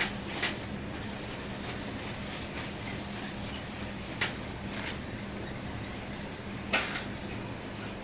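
Hard plastic shell case rubbing against a MacBook Air as it is slid on and off, with a few sharp plastic clicks: one about half a second in, one about four seconds in, and a slightly longer one near the end.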